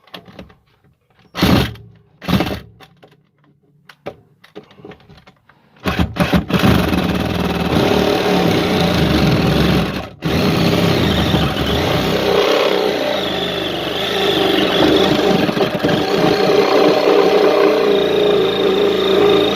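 Jigsaw cutting a hole through a travel trailer's floor. It gives two short blips, then starts a long steady cut about six seconds in, stopping briefly at about ten seconds before cutting on.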